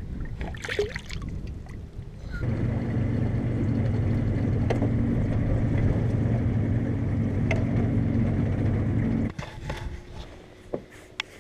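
A few knocks and handling noises, then a boat motor running with a steady hum from about two seconds in, cutting off suddenly about seven seconds later.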